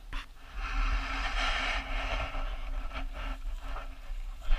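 Wind buffeting the camera microphone: a gusty low rumble under a rushing hiss that swells early on and eases off.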